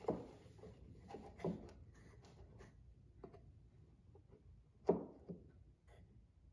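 Light wooden knocks and clicks as plywood pieces are handled and pressed against a plywood box, about five in all, the loudest near five seconds in, with faint pencil scratching on the wood between them.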